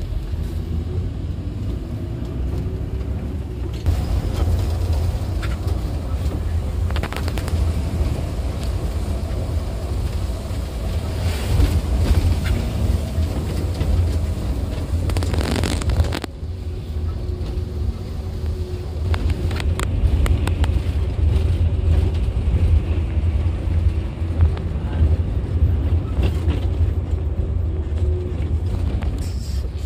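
Cabin sound of a coach bus under way: a steady low rumble of engine and tyres with a faint engine drone, broken by a few short louder noises, the longest about half-way through.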